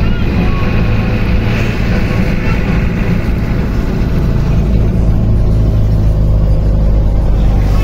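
Truck-chassis engine of a wooden-bodied bus running steadily while the bus drives, heard from inside the cabin with road and wind noise coming through the glassless windows. The low engine drone grows stronger about five seconds in.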